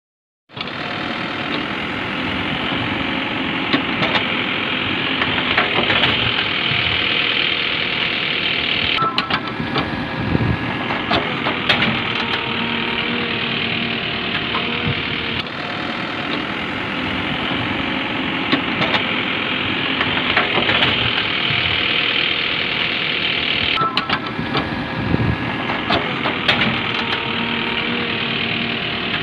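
A vehicle engine running steadily, with scattered clicks and knocks. The same stretch of engine sound repeats about every 15 seconds, like a looped sound effect.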